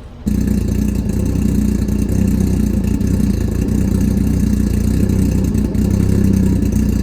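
Suzuki Hayabusa inline-four motorcycle engine, swapped into a Smart car, running at a steady idle, kept running so the new battery kill switch can be tested. The sound starts suddenly about a quarter second in.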